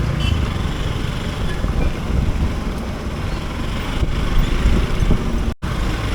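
Motorcycle running while riding along a road, with steady road and wind noise on the microphone. The sound cuts out for a moment near the end.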